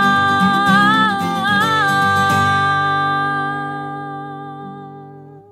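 Acoustic guitar cover music: a high note held over the chords, bent and wavered twice, then the whole sound dies away over the last few seconds.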